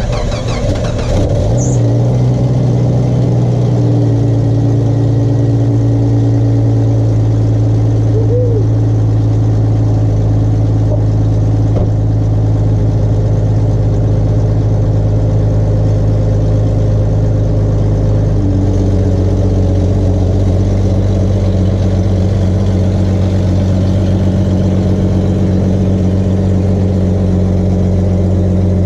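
1996 Jeep Grand Cherokee's 4.0-litre inline-six idling steadily soon after a cold start. The idle settles over the first few seconds and steps to a different speed about 18 seconds in.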